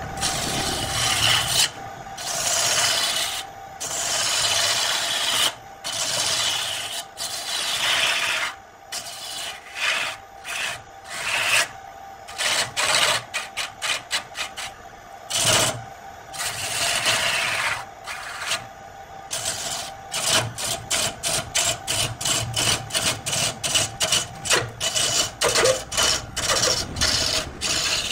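A lathe gouge cutting into a spinning wooden log, giving bursts of scraping and shaving noise over a steady hum. The cuts come as longer strokes of a second or two at first, then turn into quick short cuts, about three or four a second, in the second half.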